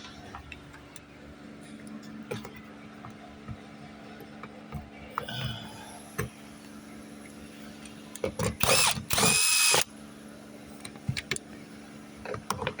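A handheld power driver spins out a 10 mm bolt in short bursts and then one longer run of about a second and a half, starting a little past the middle. Light clicks of tools and trim being handled come before it.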